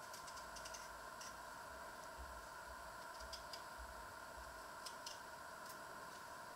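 Small kitchen knife peeling a raw potato by hand: faint, irregular little clicks and scrapes as the blade cuts through the skin, over a steady faint hum.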